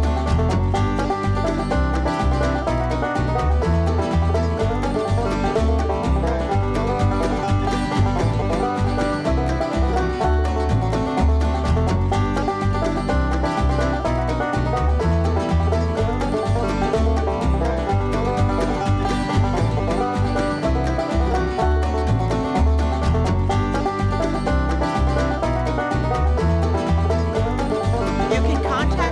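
Country or bluegrass-style music with plucked strings over a steady bass beat.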